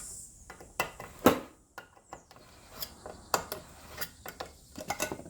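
Irregular clicks and knocks of paint containers and a mixing cup being handled while primer is readied for mixing, the loudest a sharp knock about a second in.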